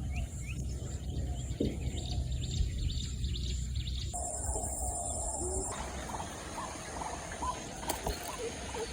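Birds chirping with short calls that grow denser after about four seconds, over a steady low rumble.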